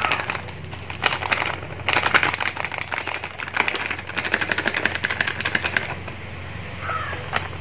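Plastic packet of gram flour crinkling as it is squeezed and shaken out over a plastic sieve: a dense run of quick crackles that dies away about six seconds in.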